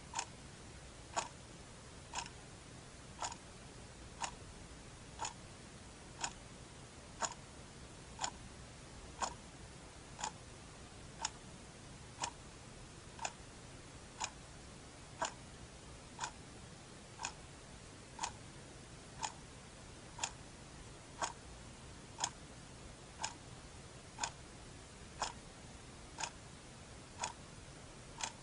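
A clock ticking steadily, about one tick a second.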